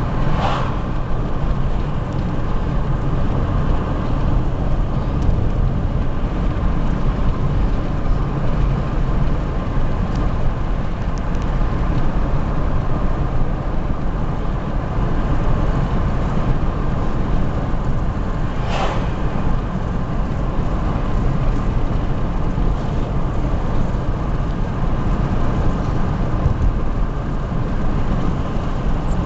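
Steady rumble of a car driving along a road, with engine and tyre noise, and a brief swish about 19 seconds in.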